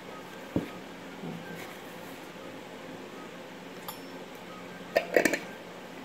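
Light knocks and clinks of tableware being handled at a table. The loudest is a quick cluster of clinks about five seconds in, over a steady low hum.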